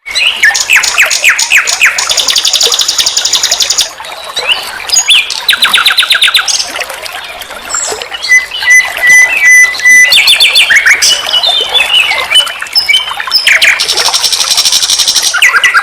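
Common nightingale singing loud, varied phrases: fast repeated trills and rattles, then a run of evenly spaced whistled notes about halfway through, with brief pauses between phrases.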